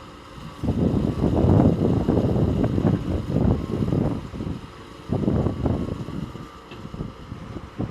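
Wind buffeting the microphone in irregular gusts, a low rumbling that swells and drops several times.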